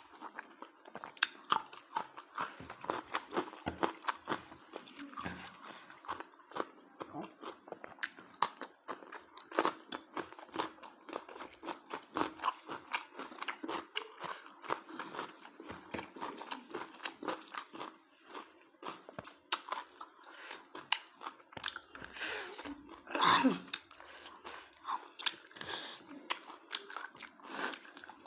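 A person eating close to the microphone: steady chewing and biting with many small crunches, and one louder crunch about three-quarters of the way through.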